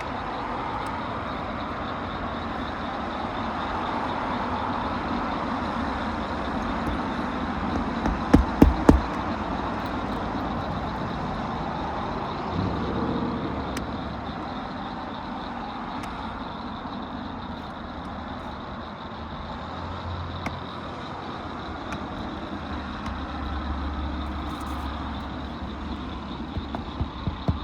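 A quick run of about five hammer strikes driving roofing nails into asphalt shingles, about eight seconds in, over a steady background rumble. Another run of strikes begins at the very end.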